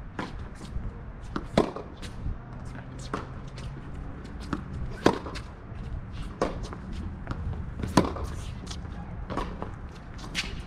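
Tennis rally on a hard court: sharp pops of the ball coming off racket strings about every one and a half seconds, alternately loud and fainter, with softer knocks of the ball bouncing and footsteps between.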